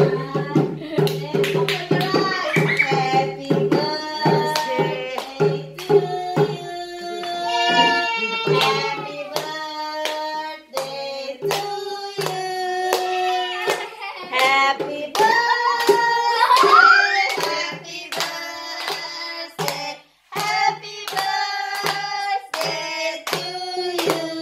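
People singing a birthday song, keeping time with steady handclaps.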